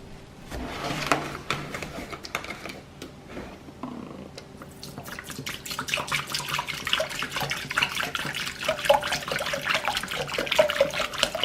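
Vinegar poured onto baking soda in a glass bowl, then the mixture fizzing, with a dense crackle of bursting bubbles that grows louder as it foams up.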